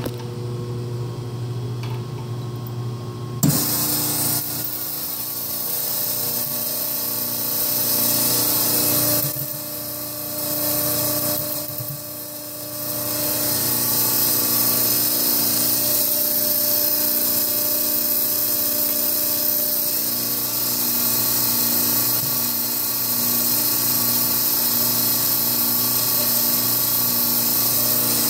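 Automatic pan-greaser / egg-wash sprayer turned on, spraying water through its nozzles: a loud, steady high hiss starts suddenly about three and a half seconds in, dips briefly twice, and holds over the steady hum of the running machine.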